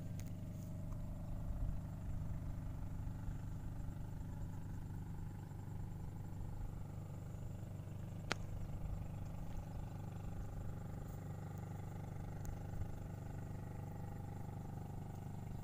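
Steady low hum of an engine running at a constant speed, with one sharp click a little past halfway.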